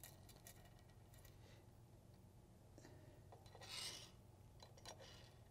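Near silence: quiet room tone with a low hum, and one faint, short scrape about four seconds in.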